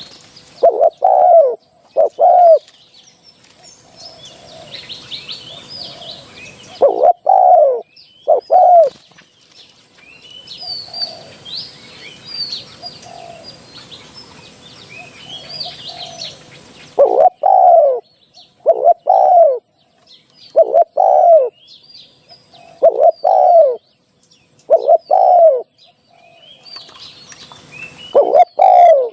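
Spotted dove cooing: loud low notes in phrases of two or three, repeated several times with pauses between, a call played to lure wild spotted doves. Small birds chirp faintly in the gaps.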